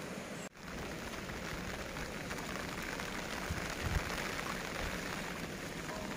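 Steady outdoor hiss of falling rain, with a few low wind thumps on the microphone about three and a half to four seconds in. The sound drops out for an instant half a second in.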